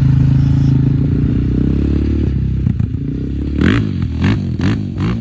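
Yamaha ATV engine running steadily, then from about three and a half seconds in, surging in a quick rhythm of about two or three pulses a second, the pitch rising and falling with each.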